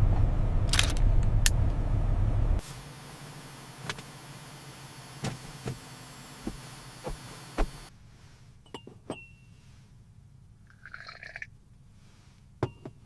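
A deep, steady rumble that cuts off abruptly after a couple of seconds, giving way to a quiet small room with scattered light taps. Near the end come a few sharp clinks that ring briefly.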